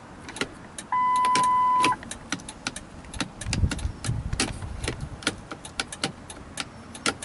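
Ford F550's turn signal flasher clicking repeatedly with the key on, now that the new multifunction switch has the signals working. A single steady beep about a second long sounds about a second in.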